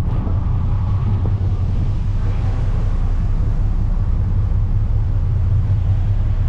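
Ferry under way, heard from its open deck: a steady low engine rumble with an even rush of wind and water over it.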